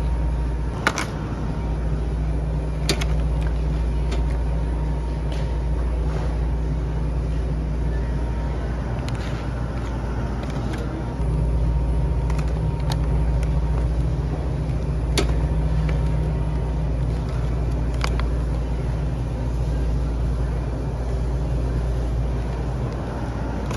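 Steady low rumble of supermarket background noise around a refrigerated produce display, with a few sharp clicks of plastic berry clamshells being picked up and handled.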